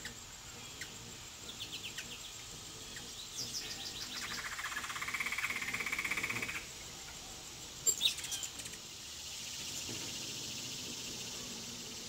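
Quick high chip notes from ruby-throated hummingbirds at a feeder, then a rapid pulsing buzz for about two seconds. Two sharp clicks come about eight seconds in, followed by a steady high hiss.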